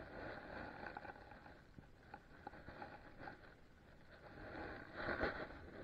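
Faint water splashing and sloshing as a hooked smallmouth bass thrashes at the surface and is landed by hand, louder briefly near the end.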